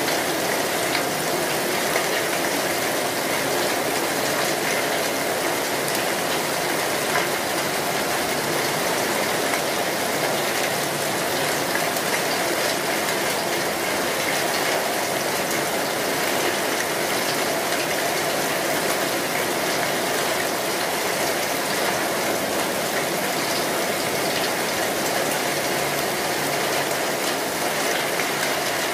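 Steady sizzling of vegetables frying in hot oil in a pan, an even hiss with no breaks.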